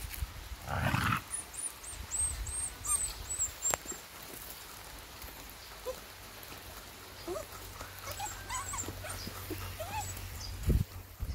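A puppy and a larger dog play-fighting. There is a short growl about a second in, then scattered small whines, and a thump near the end.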